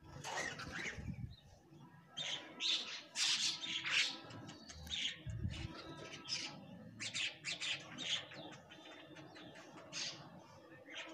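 Bank mynas calling: many short chirping calls from several birds, some overlapping, coming in bunches with brief pauses between.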